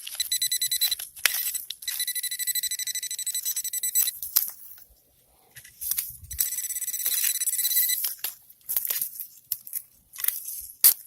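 A handheld pinpointer metal detector beeping in rapid pulses, a steady electronic tone, which signals metal close to its tip. The beeping stops for about two seconds and comes back. Near the end it gives way to scraping and crunching of rock being dug and handled.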